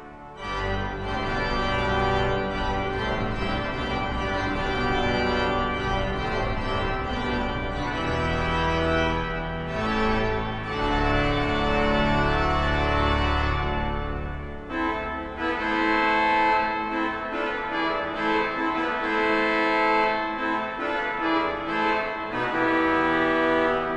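Large pipe organ, the 1938 Ernest M. Skinner and Son cathedral instrument, playing loud full chords in a grand chœur, ringing on in a cathedral's reverberation. A new chord enters just after a brief break. A heavy pedal bass sounds under it and drops out about fifteen seconds in, leaving the upper chords.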